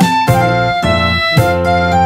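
Instrumental background music: a melody of held notes over a steady beat.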